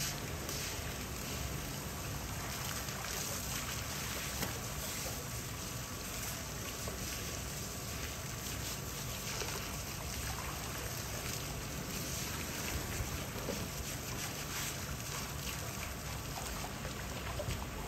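Cleaning hose water running and splashing steadily over rock, with a low steady rumble underneath.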